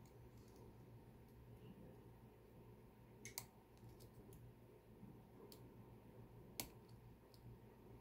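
Faint, scattered clicks of a lock pick and tension wrench working the pins in the keyway of a Mul-T-Lock Interactive padlock with mushroom drivers: a close pair a little after three seconds in and the sharpest click about six and a half seconds in, over a low steady hum.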